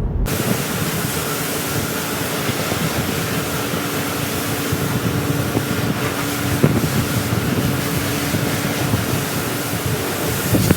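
Steady rushing hiss of water spraying over a car in a car wash, with a faint steady hum under it and a couple of short knocks.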